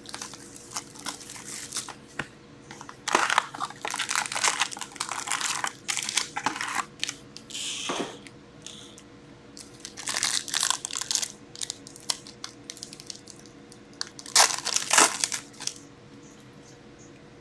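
Foil hockey card pack wrappers crinkling and tearing as packs are ripped open by hand, in several separate bursts.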